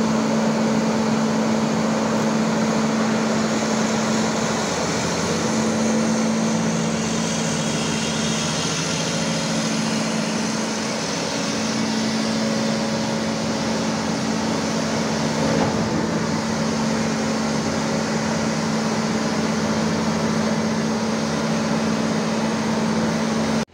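Cummins QSK23 inline-six diesel engine of a Hitachi EX1200 excavator running steadily at constant speed with a steady hum, during a running test after a radiator replacement.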